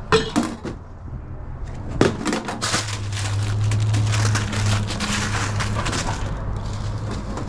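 Hot dogs being wrapped in paper sheets: a few metal clinks of a steam-table lid and utensil on stainless steel, then a knock and several seconds of crinkling and rustling paper. A low steady hum runs underneath and is stronger in the middle.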